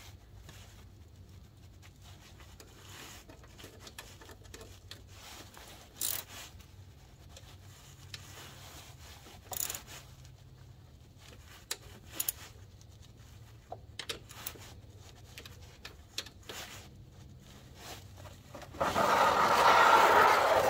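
A ratchet and socket snugging the 10 mm bolts on a golf cart engine's oil filter cover: a few scattered metal clicks and taps. Near the end comes a loud rubbing, scraping noise for about two seconds.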